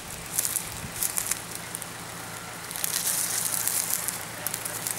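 Footsteps crunching through dry leaf litter and twigs in irregular crackling bursts, heaviest about a second in and again past the middle, over a steady low hum.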